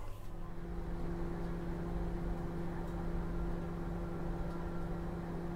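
JAC microwave oven switched on and running with a steady hum, heating a damp sock to dry it out.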